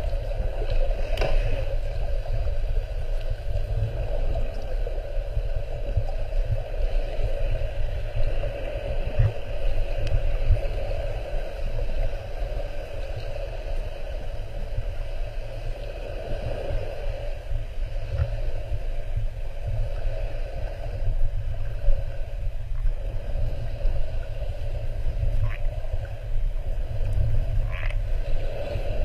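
Muffled underwater ambience picked up by a GoPro Hero 4 Silver inside its waterproof housing: a steady, churning low rumble with a steady hum over it and a few faint clicks.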